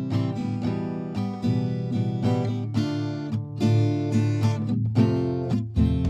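Background music: strummed acoustic guitar chords in a steady rhythm.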